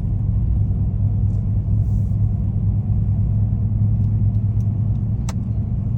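Steady low drone of a car driving at an even pace, heard from inside the cabin: engine and tyre road noise. A single short click sounds about five seconds in.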